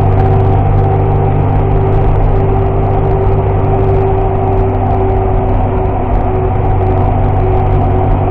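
Car engine running at steady revs, with tyre and road noise heard from inside the cabin, as the car laps a race track.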